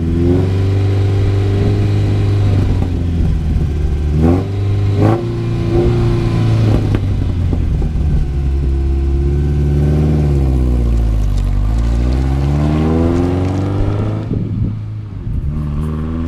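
Mazda B2000 pickup's four-cylinder engine heard through its new header and custom muffler exhaust, accelerating away: the pitch climbs and shifts several times, falls around ten seconds in and climbs again, then the sound fades as the truck gets farther off near the end.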